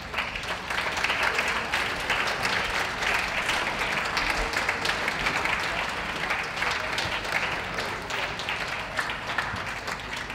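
Ringside audience applauding, starting suddenly and easing off a little near the end.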